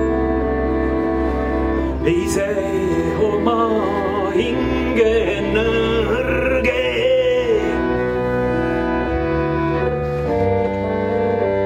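Keyboard playing long, held organ-sound chords, with a voice singing a wavering melody over them from about two seconds in until about eight seconds, after which the chords change and carry on alone.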